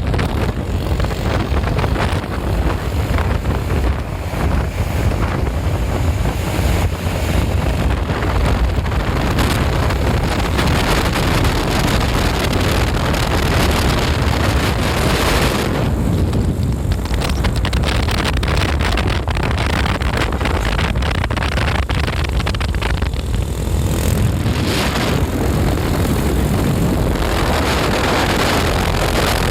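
Heavy vehicle engines running and passing close by, a dense low rumble, with wind buffeting the microphone.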